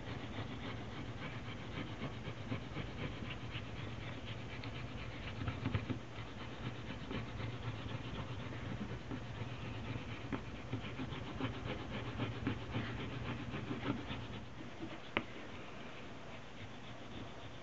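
Bone folder rubbed rapidly back and forth over glued leather and bookboard, a continuous dry scratching of quick strokes over a low steady hum, pressing down uneven spots in the board. One sharp click near the end.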